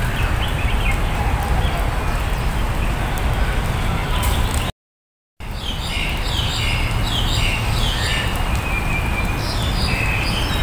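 Several birds chirping and calling in short repeated phrases, thicker in the second half, over a steady low rumble. The sound cuts out completely for about half a second near the middle.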